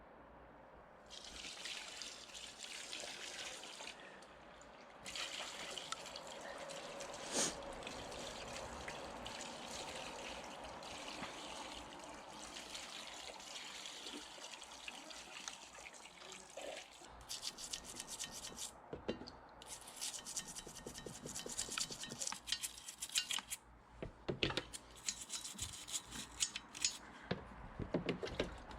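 Gasoline trickling and sloshing as a cylinder head is washed in a container of it. From a little past halfway there is a long run of quick scrubbing strokes.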